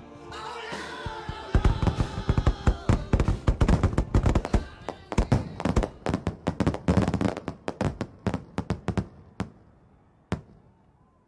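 A rapid, irregular string of sharp bangs, dense for several seconds, then thinning out to a few single pops near the end.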